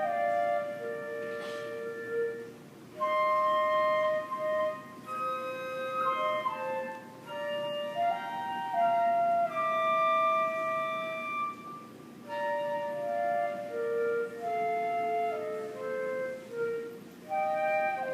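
Middle-school woodwind duet: two instruments playing held notes together in short melodic phrases, with brief pauses between phrases.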